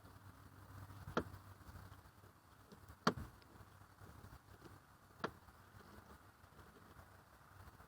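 Three sharp knocks about two seconds apart, the middle one loudest, from the plastic center floor console and its screws being handled and fitted into the car.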